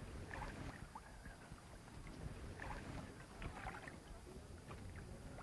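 Faint water lapping and small splashes against the hull of a small boat in shallow water, over a low wind rumble on the microphone.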